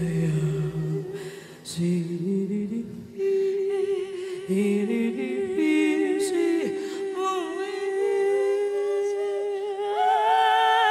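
Two women singing wordlessly together with no accompaniment heard: a lower, humming line that slides between notes under a higher held line. Near the end a voice rises to a long high note with vibrato.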